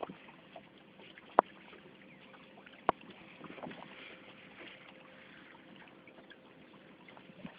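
Two sharp knocks about a second and a half apart, over a faint steady background of water and hiss, as on a small boat.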